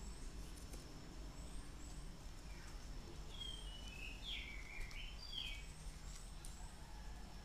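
Faint bird chirps, a short run of quick calls about halfway through and a few tiny high chirps scattered around, over a low steady hum.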